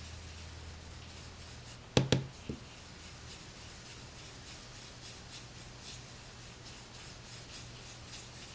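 Blender brush bristles swishing over a plastic stencil and paper in repeated soft strokes as ink is blended through the stencil. About two seconds in, two sharp knocks and a smaller one follow closely.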